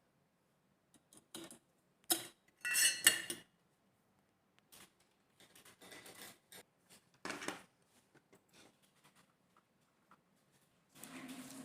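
Irregular clicks and clinks of small hard objects being handled, loudest about three seconds in, where several clinks ring briefly.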